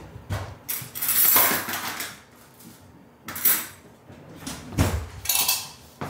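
Kitchenware being handled while wet cat food is prepared: about five short clattering and scraping sounds, the loudest lasting about a second near the start.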